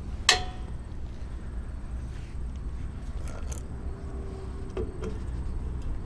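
Small metal drum-brake parts and hand tools clinking: one sharp metallic click just after the start, then a few faint taps a few seconds later, over a steady low rumble.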